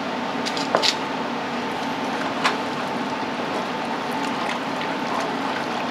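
Wooden spoon stirring macaroni and milk in an aluminum pot, with a few sharp knocks of the spoon against the pot (two close together just under a second in, one about two and a half seconds in), over a steady hiss.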